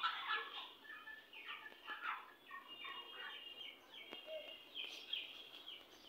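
A flock of young white broiler chickens peeping, many short, high, falling calls overlapping several times a second.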